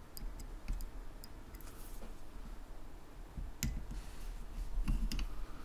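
Scattered light metallic clicks and taps of a steel desoldering needle being pushed over an IC leg on veroboard and twisted, with a low handling rumble underneath.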